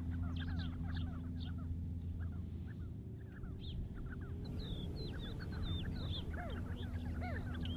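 A flock of sandgrouse calling: many short, quick chirping calls overlapping throughout, over a steady low hum.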